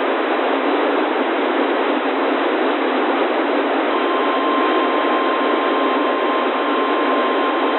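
Steady radio static hiss from a weather radio receiver, with the 1050 Hz NOAA Weather Radio warning alarm tone coming in through the static about halfway through and holding steady. The tone signals that a new warning broadcast is about to follow.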